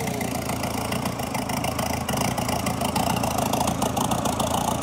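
LADA four-cylinder engine converted from gasoline to turbodiesel, running at idle just after a cold start, slowly getting a little louder.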